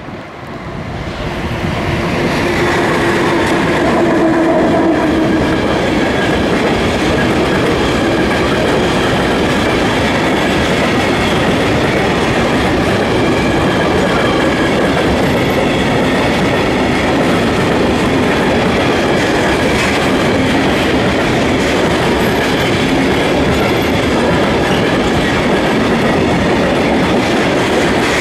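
Freight train of tank wagons passing close by, the rumble and clatter of its wheels over the rails building up over the first couple of seconds and then holding steady and loud.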